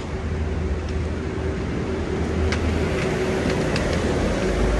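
Steady low rumble of road traffic, with a faint steady hum and a few faint clicks.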